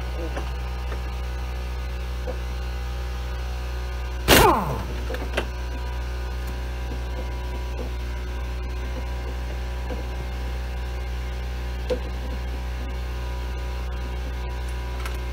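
Air compressor running as a steady low hum. About four seconds in, a pneumatic tool fires in one short burst and winds down in pitch while the 11 mm bolts holding the rear drum brake assembly to the trailing arm are being removed; a few light clicks follow.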